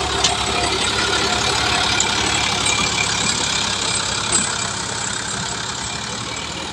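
Sonalika DI-47 RX tractor's diesel engine running under load as it tows a loaded earth trolley past, with a few brief knocks. It gets quieter toward the end as the tractor moves away.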